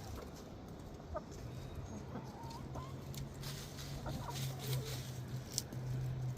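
Backyard hens clucking softly, a scatter of short calls, over a low steady hum that comes in about a second and a half in.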